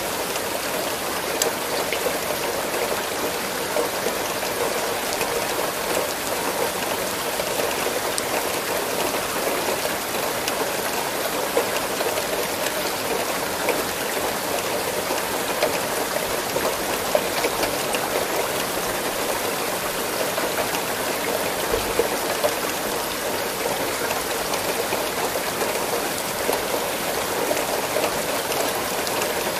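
Steady rainfall: a constant even hiss of rain with small scattered drop ticks.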